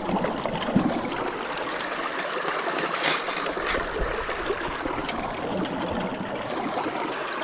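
Stream water running steadily through a metal gold-prospecting sluice box, splashing over its ridged riffle mat.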